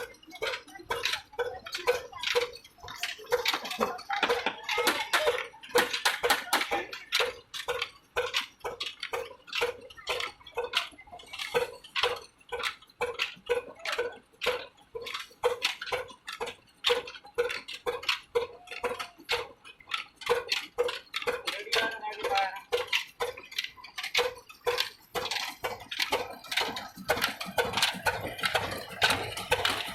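Old stationary diesel engine running slowly with a steady, rhythmic mechanical clatter of knocks, about two a second.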